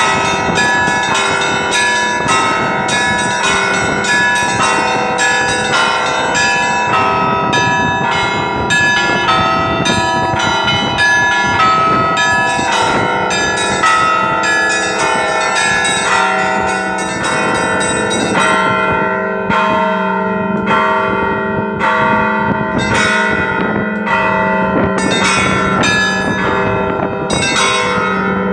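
Russian Orthodox Easter bell ringing: several church bells struck in quick, overlapping patterns over a steady low bell tone. About two-thirds of the way through, the fast high strikes thin out into more widely spaced strokes.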